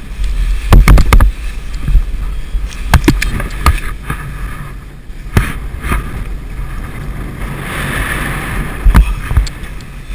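Wind buffeting the microphone in gusts while a paraglider wing is inflated overhead, with irregular sharp slaps and knocks, the loudest cluster about a second in, and a stronger rushing gust near the end.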